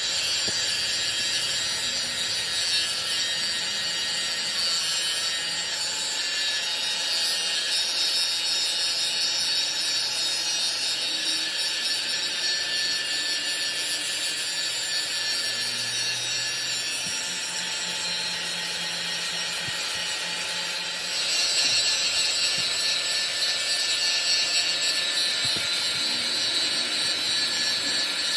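A power tool cutting metal, running steadily, with a quieter stretch about two-thirds of the way through before it gets louder again.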